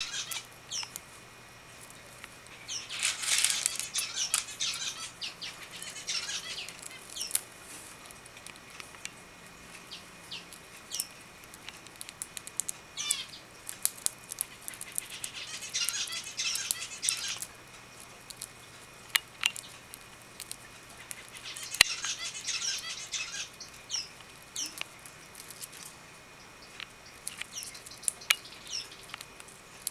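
Budgerigar chirping in short bursts of high twittering calls, with scattered sharp clicks and cracks from sunflower seed husks being split in its beak.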